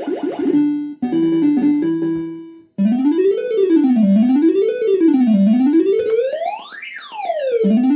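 PCP Supa Streak fruit machine's electronic sound effects: a quick run of bleeps, then a short jingle that stops about two and a half seconds in. After that comes a warbling tone that sweeps up and down about once every second and a quarter, with a higher swoop near the end.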